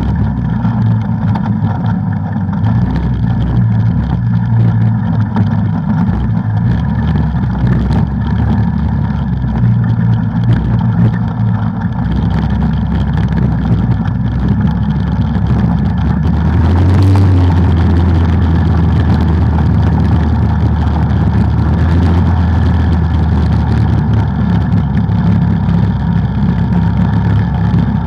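ATV engine running steadily while riding a trail, its note shifting lower and stronger about two-thirds of the way through as the throttle changes.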